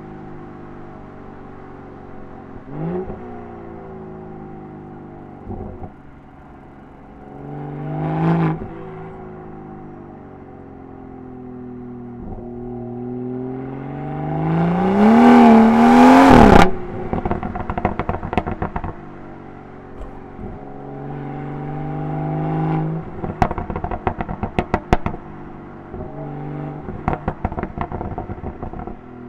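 BMW 340i's B58 turbocharged straight-six with M Performance exhaust under way, rising and falling in revs through gear changes. About halfway it climbs in one long pull to its loudest point and cuts off sharply. It is followed by bursts of exhaust crackles and pops on the overrun, heaviest in the last third.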